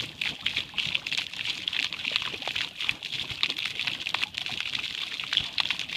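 Water from a fire-and-water fountain trickling and splashing steadily, with many small splashes and crackles.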